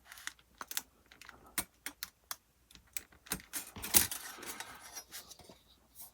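Hobby knife cutting thick photo-etched metal parts off their fret on a PE cutting block: a string of sharp clicks and short scrapes, the loudest about four seconds in. The photo-etch is thick and resists the blade.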